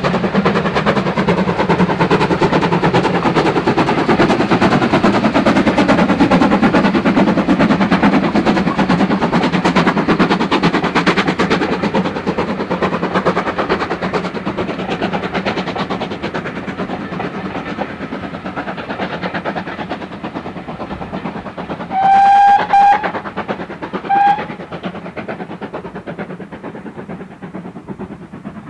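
GWR 5600 class 0-6-2T steam tank engine No. 6695 working past with its coaches, the exhaust and rattle of the train fading as it draws away. About twenty-two seconds in, a steam whistle gives two short toots close together, then a third short toot two seconds later.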